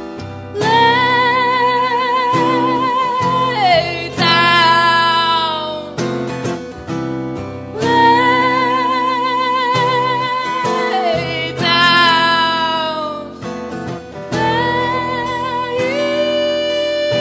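A live song: a woman singing long, wavering held notes over strummed acoustic guitar, with a couple of phrases sliding down in pitch at their ends.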